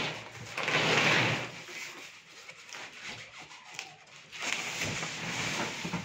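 Large cardboard washing-machine carton being handled and slid up off the machine: rustling, scraping cardboard noise in two spells, one around the first second and another over the last second and a half.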